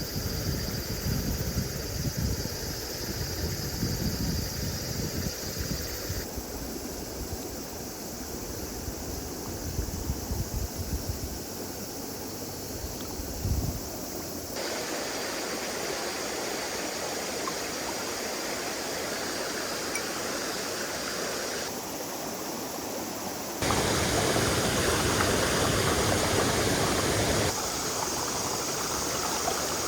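Mountain stream rushing over rocks, a steady watery hiss that jumps in loudness and tone several times as shots change. Low, uneven thumping in roughly the first dozen seconds.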